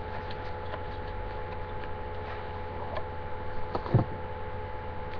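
A perfume bottle and its cardboard box being handled, with faint small clicks and rustles over a steady electrical hum, and one brief louder sound about four seconds in.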